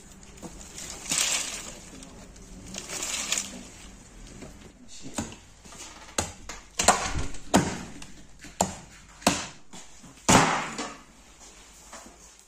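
Heavy meat cleaver chopping into a raw carcass quarter on a wooden chopping stump: about seven sharp blows roughly a second apart in the second half, each a hard crack of blade through meat and bone into the wood. A few soft swells of noise come before the chopping starts.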